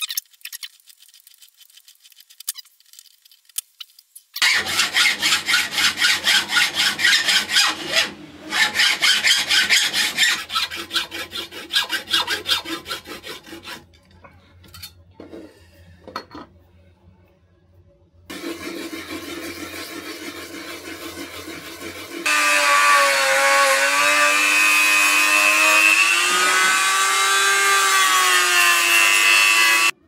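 Cast brass being sawn and worked: about ten seconds of fast, even rasping strokes starting a few seconds in, then after a pause a small power tool grinding, its whine loud, the pitch wavering up and down under load.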